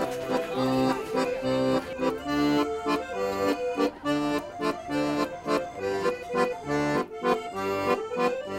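Piano accordion playing a tune, its bass notes and chords pulsing in a steady rhythm.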